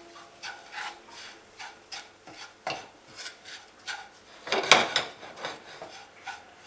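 Wooden spoon scraping and stirring breadcrumbs toasting in a nonstick frying pan, a rasping stroke about twice a second, with one louder scrape about two-thirds of the way through.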